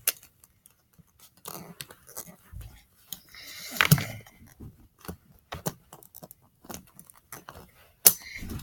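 Plastic and metal parts of a Hasbro Beyblade Burst top (Horusood) being pressed and twisted together by hand: scattered light clicks and rubbing, a louder cluster about four seconds in and a louder rustling burst near the end.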